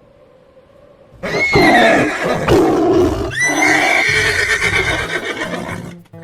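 Horse neighing loudly in two long calls, the first starting about a second in and the second, longer one cutting off near the end: the distressed cries of a horse being taken by a predator.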